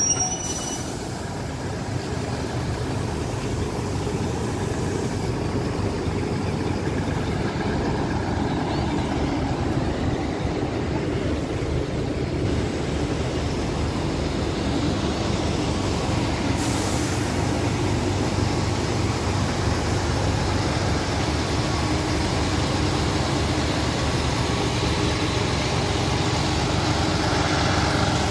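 Machinery of a multi-wagon railway drain-servicing maintenance train running steadily, a continuous loud low drone, with a short hiss about two-thirds of the way through.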